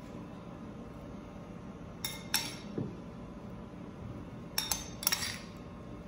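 A metal spoon clinking against a bowl and a glass baking dish while spooning out a diced vegetable topping: a pair of sharp clinks about two seconds in and another pair near the end, over a steady low background hum.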